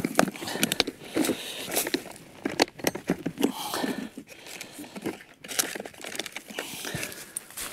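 Rustling, crinkling and many small clicks of people handling cloth and gear close by, with low, indistinct voices now and then.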